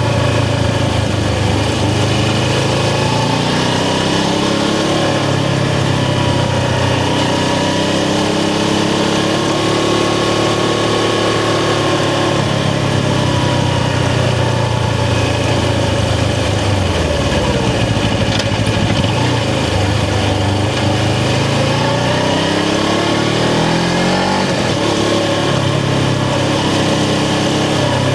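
Suzuki GS500's air-cooled parallel-twin engine running while the bike is ridden, its revs rising and falling with throttle. About seventeen seconds in, the revs drop low, then climb steadily again.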